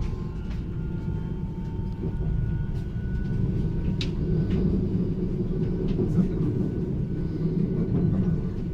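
Passenger train running, heard from inside the carriage: a steady low rumble with faint thin whining tones above it and a few light clicks, one sharper about four seconds in.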